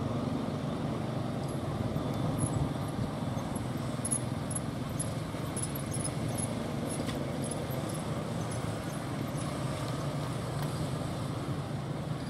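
Diesel locomotive hauling a train of tank wagons at low speed, its engine running with a steady low drone. Light, high-pitched ticks come and go through the middle.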